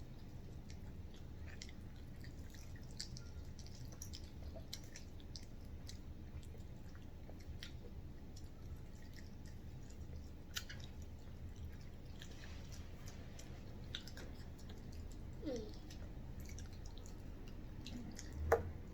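People chewing chicken and French fries: scattered small wet mouth clicks and smacks over a low steady hum.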